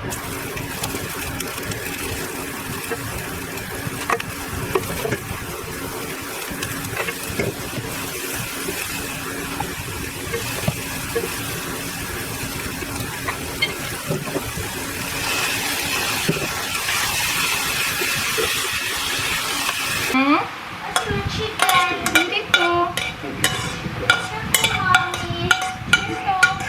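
Food sizzling in a frying pan as it is stirred, a steady frying hiss. About twenty seconds in the frying gives way to a run of sharp clicks and short pitched vocal sounds.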